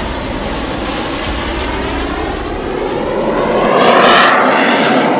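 Fighter jet flying past overhead: steady jet engine noise with a sweeping, phasing whoosh, swelling to its loudest about four seconds in.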